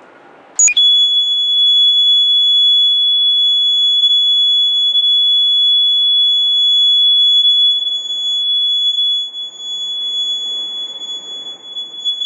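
Small electronic buzzer switched on with a click about half a second in, then sounding one steady high-pitched tone. The tone wavers and dips in loudness after about eight seconds.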